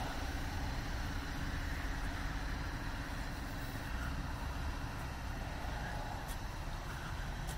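Steady low outdoor rumble with a constant low hum, and a few faint clicks near the end.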